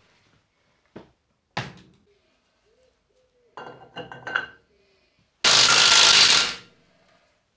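A power tool runs in one burst of about a second, spinning a nut onto the hub studs, after a few light metallic knocks and a ringing clink of nuts and parts being handled.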